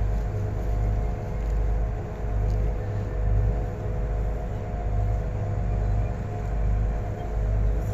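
Danube river cruise boat under way, heard on board: a low engine rumble that swells and fades every second or so over a steady drone.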